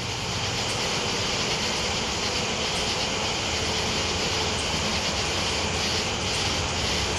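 Distant rumble of two CSX ES44DC diesel locomotives with 12-cylinder GE Evolution engines, approaching and slowly growing louder, under a steady high hiss.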